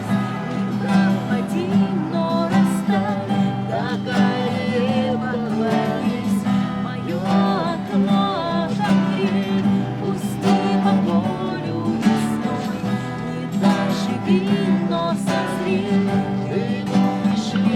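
Music: a woman singing with acoustic guitar accompaniment.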